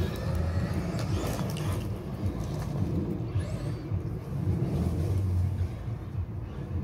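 Traxxas Maxx RC monster truck, electric on a 3S LiPo battery, driving on a dirt track: its motor whines up in pitch as it accelerates, about a second in and again around three seconds in, over a low choppy rumble.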